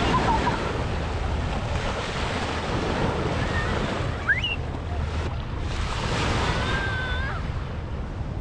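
Small waves washing and breaking on a sandy shore, with wind buffeting the microphone in a low rumble.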